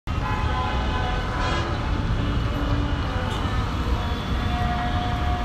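Road traffic noise with a steady low rumble, and a vehicle horn sounding one long, flat note near the end.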